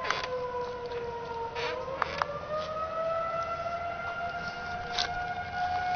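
Outdoor tornado warning siren sounding a long held wail that dips slightly and then rises about two seconds in, with a few brief clicks over it.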